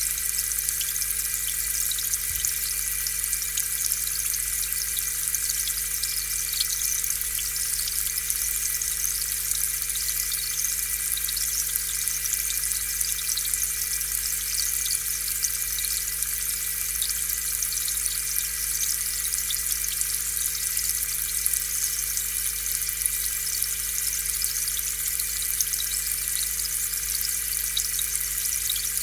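Aquarium air pump running, with air bubbles streaming up through the water: a steady fizzing hiss full of tiny pops over a faint, steady mechanical hum.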